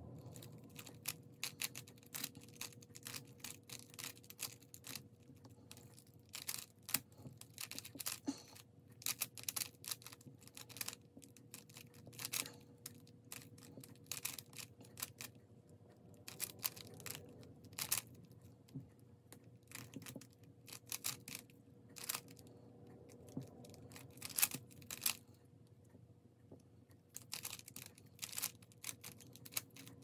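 Plastic 3x3 Rubik's cube being turned by hand: its layers click and clack in quick, irregular runs of turns with short pauses between them.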